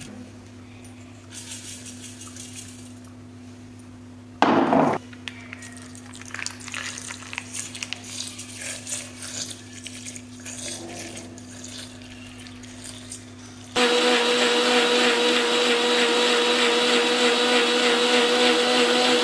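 Electric mixer grinder blending watermelon pieces with sugar. The motor starts abruptly about fourteen seconds in and runs with a steady whine. Before it there is soft scraping and clinking as a spatula and spoon work in the steel jar, and one brief loud knock about four seconds in.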